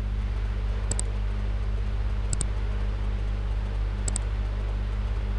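Steady low electrical hum, with three quick double clicks of a computer mouse about a second and a half apart.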